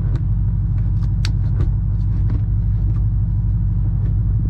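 Shelby GT500's V8 idling steadily, with several sharp clicks and knocks as the newly fitted MGW shifter is worked through the gears.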